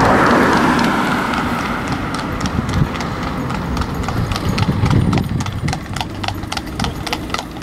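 Welsh cob's shod hooves clip-clopping on tarmac at a steady trot as it pulls a sulky. The hoofbeats grow clearer as a car's noise fades over the first two seconds.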